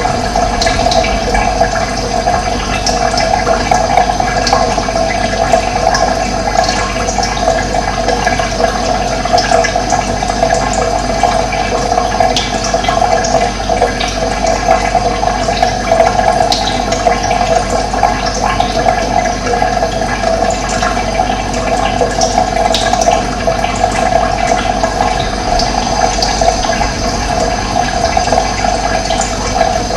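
Steady rush of running water, with faint short bird chirps scattered through it.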